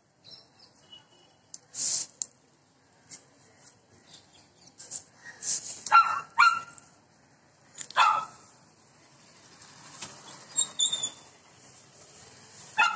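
A long stick broom sweeping over concrete in scattered swishes, with a few short dog barks: two close together about six seconds in, another about eight seconds in and one near the end.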